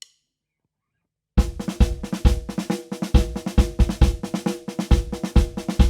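Silence, then about a second and a half in a drum kit starts a busy beat of kick drum and snare, with a few held notes from the band underneath.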